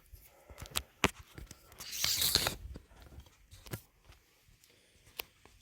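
Handling noises: several sharp clicks and knocks, with a half-second rustling scrape about two seconds in.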